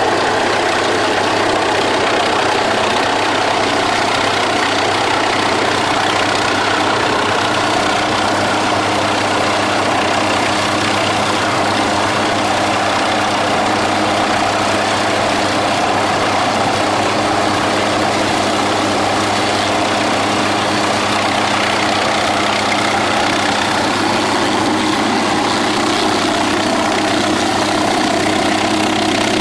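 MQ-8B Fire Scout unmanned helicopter's turboshaft engine and main rotor running steadily as it hovers and settles toward the deck to land. There is a constant low rotor hum under a broad turbine rush.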